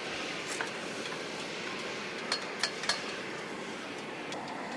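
Steady rushing noise from the iron-melting furnace in operation, with three sharp metallic clinks of tools a little past halfway.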